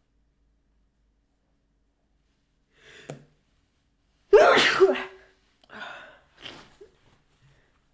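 A woman sneezes once, loudly and suddenly, about four and a half seconds in, after a short gasping inhale about a second and a half earlier. Two weaker breaths follow the sneeze.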